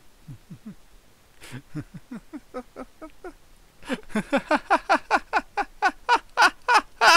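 A man laughing: soft, sparse chuckles that build about four seconds in into loud, rhythmic 'heh heh' laughter at about four laughs a second, each laugh dropping in pitch.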